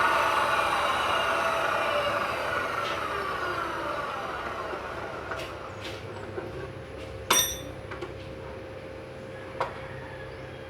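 Grinder motor spinning down after being switched off, its whine falling in pitch and fading over about four seconds. Then a few light knocks and one ringing metallic clink about seven seconds in.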